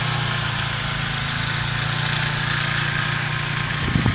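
Engine running steadily, with a brief thump near the end.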